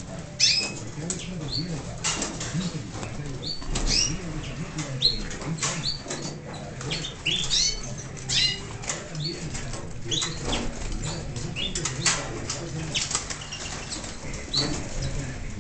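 Caged finches and canaries chirping in short, rising and falling calls, many in quick succession, with wings fluttering as they flit about the cages.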